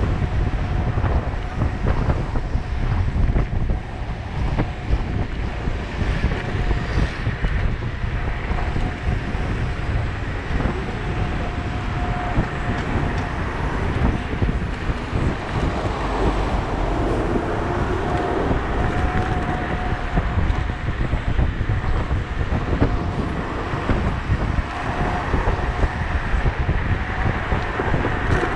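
Wind buffeting the microphone while riding a Sherman electric unicycle: a heavy, steady rumble of rushing air, with a faint thin whine underneath that fades in and out.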